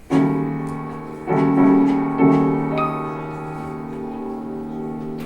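Piano playing slow, sustained chords: three chords struck about a second apart and left to ring, with a few higher single notes near the middle.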